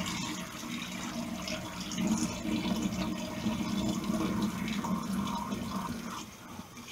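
Kitchen tap running water onto basmati rice in a bowl as it is rinsed until the water runs clear. It quietens near the end.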